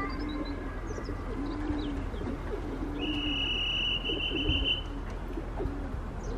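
Racing pigeons at the loft cooing again and again in low, rolling calls, with small birds chirping faintly. A steady high tone sounds for about two seconds midway.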